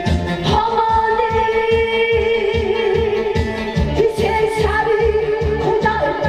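Music with a steady beat and singing in long held notes.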